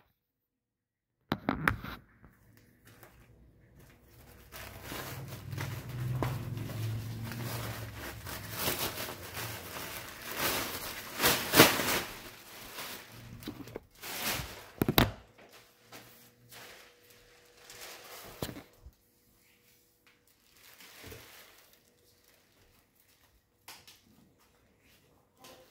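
Rustling and crinkling of a plastic garbage bag being handled, with a few knocks; it is busiest and loudest in the first half, then falls to scattered faint rustles.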